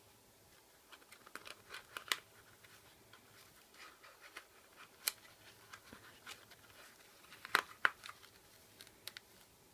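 Scattered light clicks, scratches and crinkling from small handwork: masking tape and wrapping material pressed around a flashlight battery. The loudest is a close pair of sharp clicks about three quarters through.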